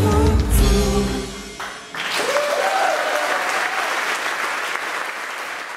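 A live band's final chord with a held sung note, cut off sharply about a second and a half in. Then the audience applauds and cheers, the applause thinning towards the end.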